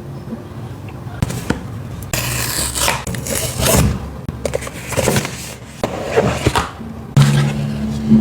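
Smartwatch box and packaging being handled and opened, with irregular scraping and rustling. A low steady hum comes in near the end.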